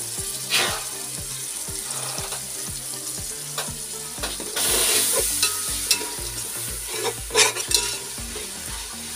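Onion-and-spice masala with freshly added yogurt sizzling in hot oil in a metal pot, stirred with a spatula that scrapes the pot. The sizzle grows louder about halfway through, and there are a few sharp scrapes near the end.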